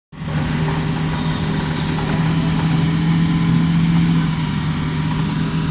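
Diesel engine of a Hitachi Zaxis 210F hydraulic excavator running steadily, holding one even pitch.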